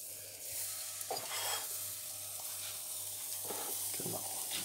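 Thin pancake batter sizzling in a hot frying pan, a steady frying hiss, with a few light knocks of utensils.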